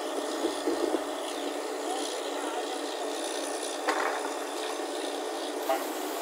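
Truck-mounted borewell drilling rig running with a steady, even mechanical noise, with a few brief shouts of workers' voices over it.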